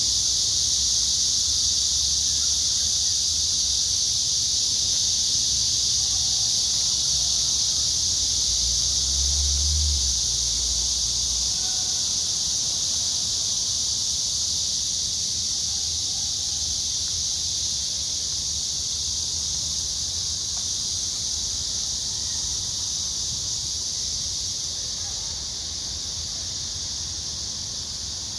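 A dense chorus of insects, a continuous high shrill that holds steady and grows slightly quieter through the second half.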